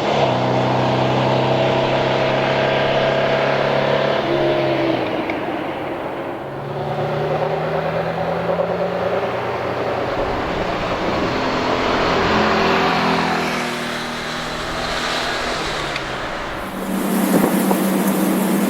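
Rebuilt 1968 Porsche 912's air-cooled flat-four engine running on the road, its note rising and falling in pitch with throttle and gear changes. Near the end it gives way abruptly to a steady hum with hiss.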